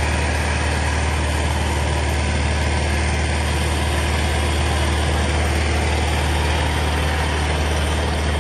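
Diesel tractor engine running steadily and loudly, a constant low hum with a broad noisy wash over it.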